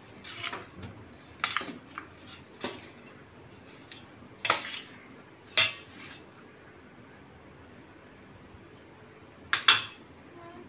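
Cooked basmati rice being mixed by hand in a stainless steel tray, the tray giving scattered clinks and knocks. Two sharp clacks come close together near the end.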